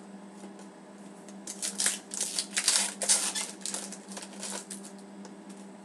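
Hockey trading cards sliding and flicking against each other in the hands, a quick run of short papery swishes lasting about three seconds, over a steady low hum.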